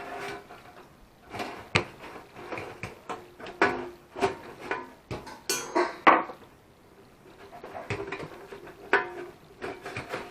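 Irregular clicks and clunks of small hard plastic and metal parts being handled, a few per second, some with a brief ring, with a quieter stretch a little past the middle.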